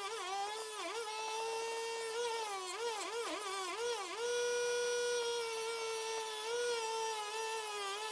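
Background music: a single melody line of long held notes with quick ornamental turns between them, a fiddle-like tone.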